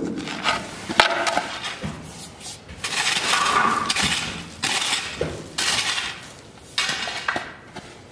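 Metal rake dragging through loose crushed-stone gravel in several scraping strokes, the stones clinking and rattling. There is a sharp click about a second in.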